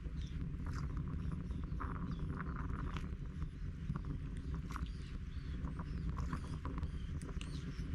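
Many small birds chirping and twittering in quick, scattered calls over a steady low rumble.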